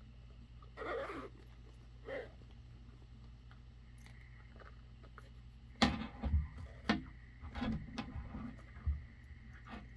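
Handling noises from a hard-shell watch carrying case being handled: two soft rustles, then a cluster of sharp clicks and knocks from about six seconds in.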